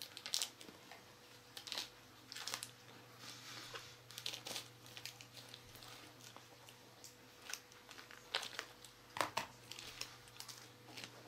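Scissors snipping open small foil sachets, and the sachets crinkling as they are handled and squeezed, in scattered short crackles and snaps.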